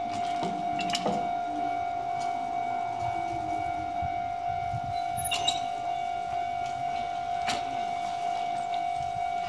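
Japanese level crossing warning alarm sounding as a steady ringing tone, with a few sharp clicks over it.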